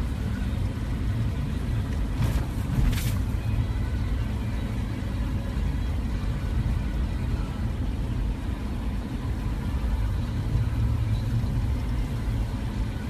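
Steady low rumble of road and engine noise inside a moving car's cabin, with two brief clicks about two and three seconds in.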